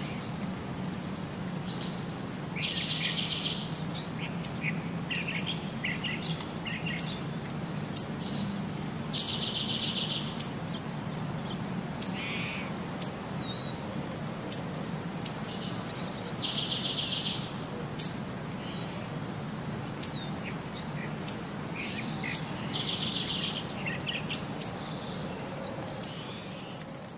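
Birds chirping: short, sharp high chirps about once a second, with a buzzy trilled call returning every six to seven seconds in the same repeating pattern, over a steady low hum.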